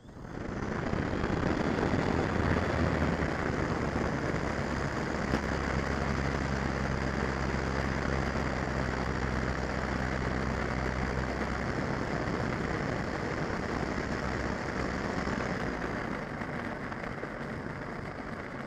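Electric motor and propeller of a FlyZone Cessna 182 RC model starting suddenly and running steadily as the model taxis over asphalt, heard from an onboard camera. It is a loud rushing noise with a low hum underneath, easing slightly near the end.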